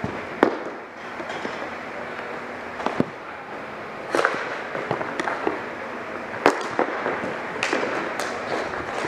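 Ball hockey play: a string of sharp clacks and knocks, about six of them, from sticks striking the ball, each other and the boards, over a steady hiss of rink noise. The loudest clacks come just after the start and about six and a half seconds in.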